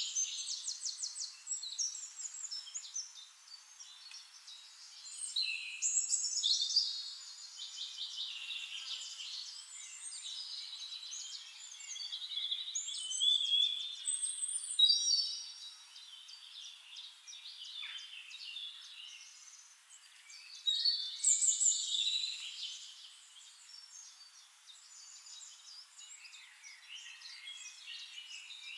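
Several forest songbirds singing, their high chirps and fast trills overlapping, with louder bursts of song three times.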